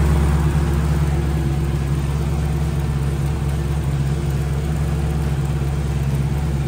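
Twin-turbocharged LS V8 engine idling, a loud, steady low-pitched running sound with no revving.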